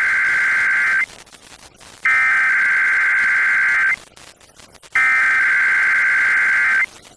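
Emergency Alert System SAME header: a harsh, buzzing digital data burst, two alternating tones, sent three times, each about two seconds long with a second's gap between. It is the coded header that opens an EAS or NOAA Weather Radio alert.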